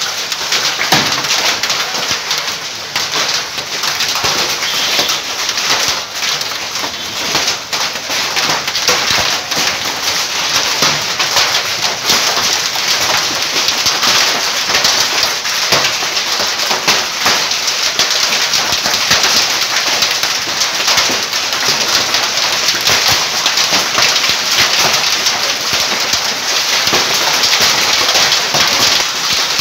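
Hail and rain pelting down on a street: a dense, steady hiss with many small sharp clicks of hailstones striking hard surfaces.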